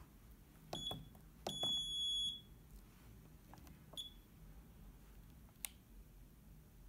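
Keypad beeps from a DDCS V1.1 CNC controller as its buttons are pressed. There is a short high beep about a second in, a longer beep lasting nearly a second, and another short beep around four seconds, along with soft clicks of the keys.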